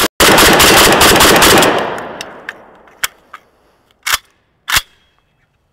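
Riley Defense Krink, an AKS-74U-pattern rifle in 7.62x39, firing a fast string of shots for about a second and a half, the sound dying away over the following second. A few separate sharp knocks follow, the two loudest about a second before the end.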